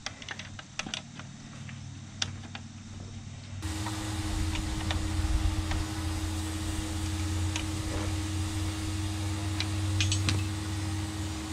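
A few sharp tool clicks, then, about three and a half seconds in, a power tool's motor starts and runs steadily, turning down the threaded rods of a coil spring compressor to compress the front coil spring.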